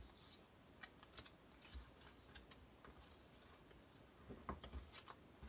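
Near silence with faint, scattered small taps and clicks of cardstock and craft tools being handled on a work table, a few coming close together about four and a half seconds in.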